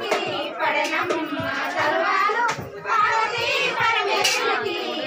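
Women singing a traditional Telugu wedding song together, with a few sharp knocks scattered through it.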